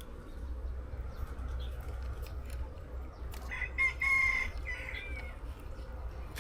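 A rooster crowing once, a pitched call lasting about a second and a half starting about three and a half seconds in, over a steady low background rumble.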